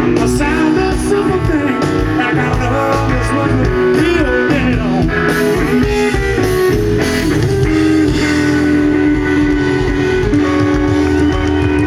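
Live blues band playing an instrumental passage: electric guitar lead with bent notes and long held notes over bass and rhythm.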